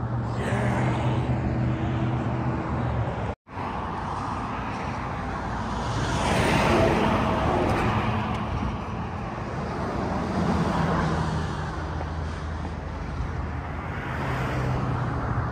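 Road traffic running along the street, with one vehicle passing by more loudly about seven seconds in.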